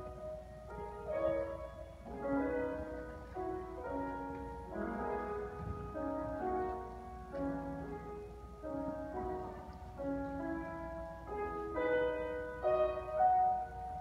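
A grand piano played solo: a melody of single notes and chords that ring on and overlap.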